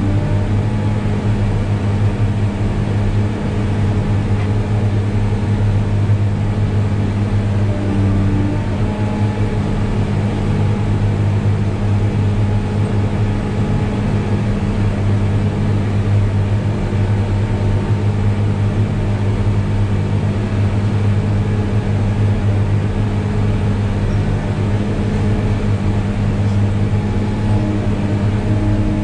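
New Holland RG140B motor grader's diesel engine running at a steady, unchanging speed, a constant low drone.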